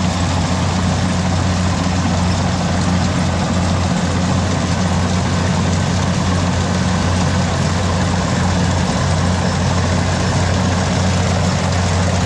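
Rice combine harvester running steadily under load, a constant low engine hum with the even rushing noise of the cutting and threshing machinery.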